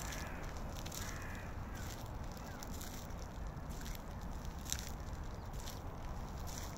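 A bird of the crow family gives a short harsh call about a second in, and a fainter one a little later, over a steady low outdoor rumble. Footsteps squelch in wet snow now and then.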